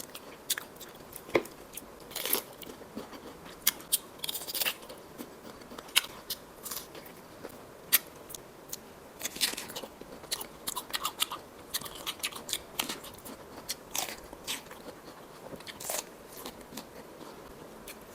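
A person biting and chewing ripe peach close to the microphone: irregular bites and chewing sounds, many short crunches and smacks at uneven spacing.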